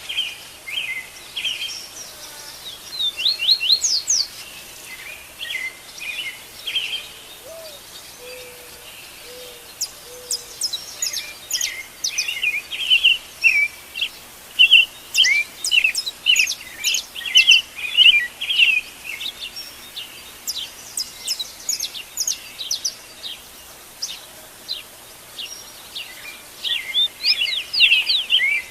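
Several birds singing together in a dawn chorus: many quick, high chirps and trills overlapping, densest in the middle stretch and again near the end.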